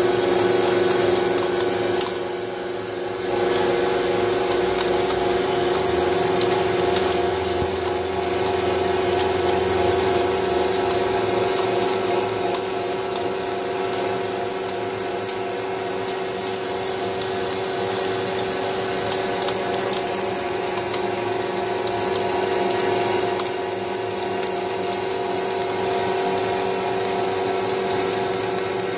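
Large engine lathe taking a heavy cut in a steel hydraulic cylinder head blank with coolant flowing: a steady machine whine under the noise of the tool cutting steel. It turns briefly quieter about two seconds in.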